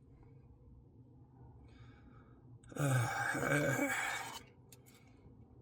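A man's breathy, voiced sigh lasting about a second and a half, near the middle, followed by a couple of faint clicks.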